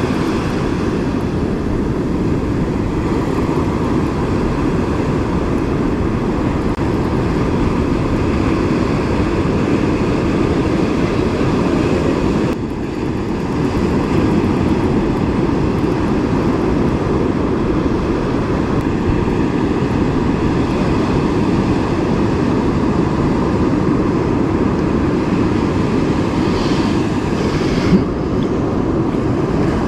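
Steady, loud rush of surf washing up the beach, with low rumbling wind buffeting the microphone; one sharp knock near the end.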